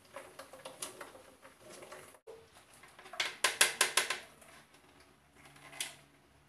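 Light clicks and scraping of plastic kitchenware as blended corn mash is poured from a blender jar into a plastic sieve and pressed through, with a cluster of sharper knocks about three to four seconds in as the jar is tipped and knocked against the strainer.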